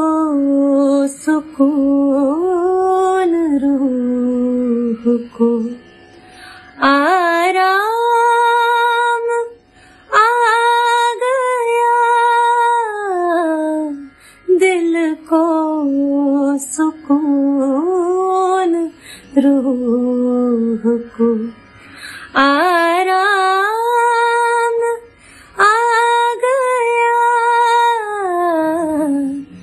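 A woman singing an Urdu ghazal solo, with no instrument heard: long held notes with vibrato and ornamental turns, in phrases broken by short pauses for breath.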